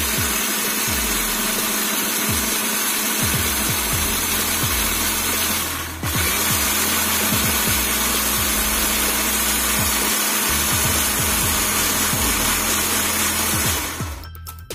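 Electric countertop blender running at full speed, grinding a thick spice paste. The motor stops for a moment about six seconds in, starts again, and cuts off shortly before the end.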